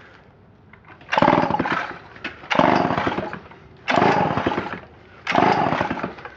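Homelite C-5 two-stroke chainsaw being pull-started four times in a row, each pull a short rapid chugging of the engine turning over on the recoil cord. The engine does not catch between pulls.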